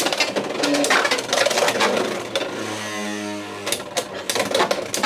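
Beyblade X tops, Driger Slash among them, clattering and clashing in a plastic stadium as a series of rapid clicks and knocks. Around the middle there is a brief steady buzzing whir, then more clicks.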